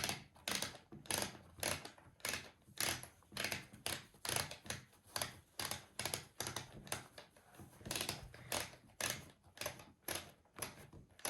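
Plastic ratchet of a doll's hair-retracting mechanism clicking as its knob is twisted, a steady run of sharp clicks about two a second, winding the doll's plaits up into her head.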